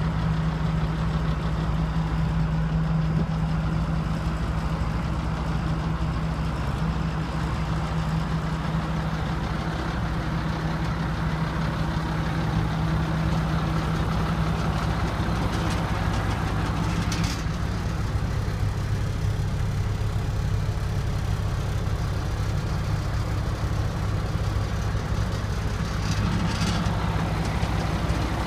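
Engine of an Ag-Chem fertilizer spreader idling steadily, with two short hissing noises about 17 and 26 seconds in.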